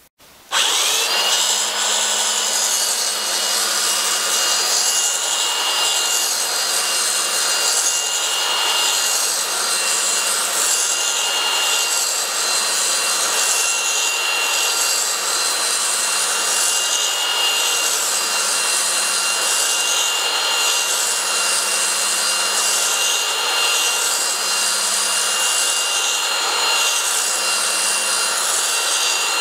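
Corded belt sander switched on just after the start, its whine rising to speed and then holding steady. It grinds a scarf bevel into the edge of 4mm okoume marine plywood while being worked back and forth across the panel.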